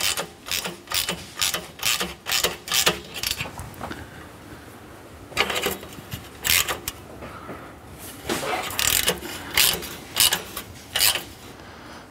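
Ratchet wrench clicking in quick strokes as an exhaust tip clamp is tightened: a steady run of strokes for about three and a half seconds, a short pause, then several shorter bursts of clicking.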